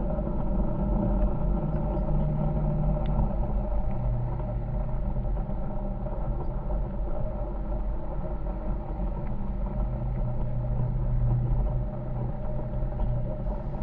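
Side-by-side UTV engine running steadily while driving a rocky trail, a continuous low drone whose pitch dips slightly a few times as the throttle changes.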